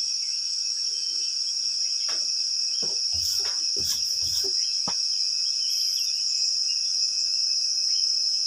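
Steady high-pitched chirring of insects, crickets or similar, with a few short knocks and clicks between about two and five seconds in.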